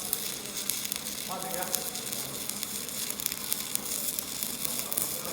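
Shielded metal arc (stick) welding with a 3.2 mm cast-iron electrode at about 90 A: the arc gives a continuous crackling sizzle.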